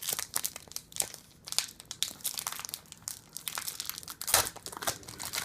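Foil wrapper of a Pokémon Trading Card Game booster pack crinkling in the hands as it is torn open, a run of irregular crackles with a louder crinkle about four seconds in.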